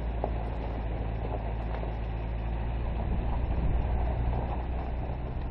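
Car engine and road noise heard from inside the moving car: a steady low drone with road rumble, growing a little louder past the middle.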